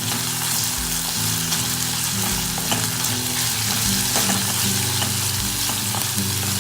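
Ginger-garlic paste and slit green chillies frying in hot ghee in a pan, sizzling steadily as they are sautéed and stirred.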